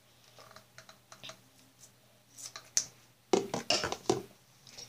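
Light clicks and taps from a toothbrush and toothpaste tube being handled while toothpaste is put on, with a louder cluster of clicks about three and a half seconds in.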